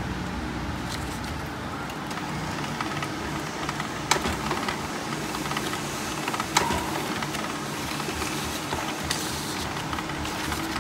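Canon imageCLASS laser multifunction printer with a freshly fitted primary charge roller, running a test print: a steady mechanical whir with two sharp clicks, about four and six and a half seconds in.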